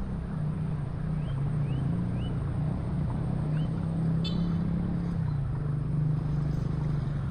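A motor vehicle's engine running steadily, its hum wavering a little in pitch, with four short rising high chirps in the first half and a brief sharp click about four seconds in.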